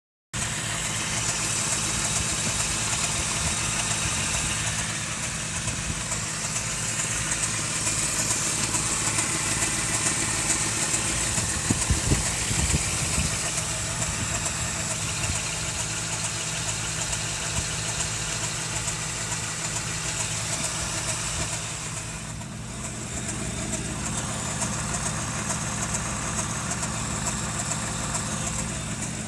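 1988 Toyota 4Runner's 22RE 2.4-litre four-cylinder engine idling steadily, carrying a noise the owner calls strange, with a few brief knocks about twelve seconds in.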